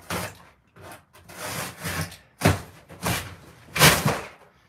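Large cardboard shipping box being pulled open by hand: several scraping, rubbing bursts as the stiff cardboard panel and flaps drag across each other, the loudest near the end.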